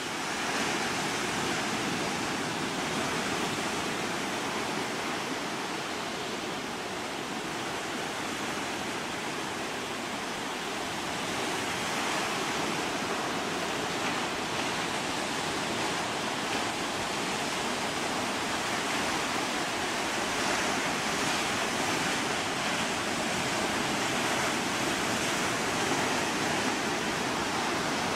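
Steady rushing of ocean surf and moving sea water, swelling slightly in the second half.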